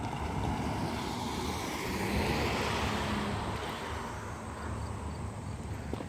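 A road vehicle passing by, its tyre and engine noise swelling to a peak about two to three seconds in and then fading away.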